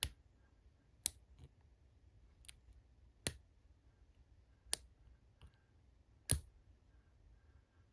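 Sharp metal clicks of a lock pick working the pins inside a Master Lock No. 101 padlock under tension, about eight single clicks at irregular intervals.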